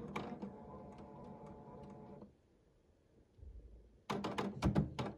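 Canon inkjet printer's internal mechanism running with a steady whir of several held tones, stopping suddenly about two seconds in, while the printer is put through a button-sequence reset for support code 5200. Near the end comes a quick run of loud clicks and knocks.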